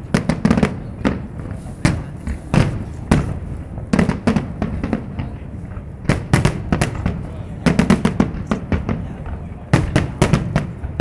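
Aerial fireworks display: shells bursting in many sharp bangs at irregular intervals, bunching into rapid volleys several times, the densest near the end.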